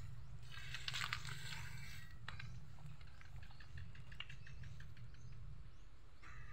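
Dry leaves and twigs crackling and rustling underfoot, loudest about a second in, over a steady low rumble. Faint short high chirps come in the middle.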